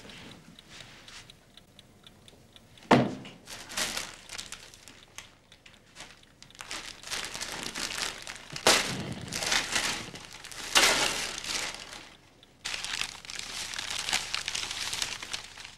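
Gift wrapping paper being torn open and crumpled as a present is unwrapped, in a series of rustling rips with a sharp one about three seconds in.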